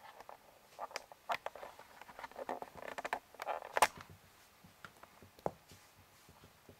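Scuffing, rustling and light clicks of an electrical cord and a small toy moving across carpet during play, bunched between about one and four seconds in, with the sharpest click near four seconds.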